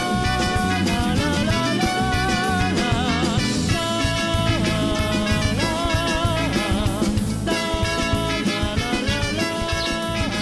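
Background music: an upbeat song with a steady beat and a held melody line that wavers in pitch.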